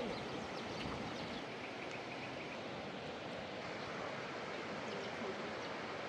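Steady outdoor rushing noise with no distinct events.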